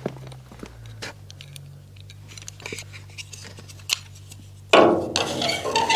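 Metal fittings on a tipper trailer's side wall being handled while a locking bolt is fitted: small clicks and taps, then a louder metallic scraping rattle about three-quarters of the way through, all over a low steady hum.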